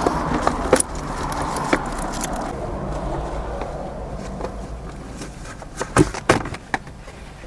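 Scattered sharp clicks and knocks of interior trim around a Subaru WRX's shifter being worked loose by hand, with a quick cluster of them near the end, over a steady low hum.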